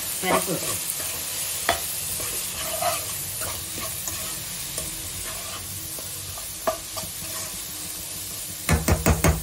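Soya chunks frying with onion and tomato in a non-stick kadai, sizzling steadily while a steel spoon stirs and scrapes through them, with a few sharp clicks of spoon on pan. Near the end comes a quick run of loud knocks.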